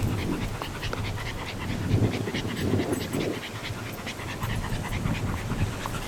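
A small dog, a Maltese, panting.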